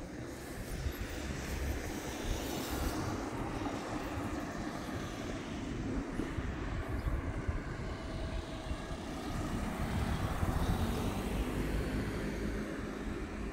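Engine noise of an airplane passing overhead: a wide rumbling rush that slowly swells, is loudest about ten seconds in, then begins to fade.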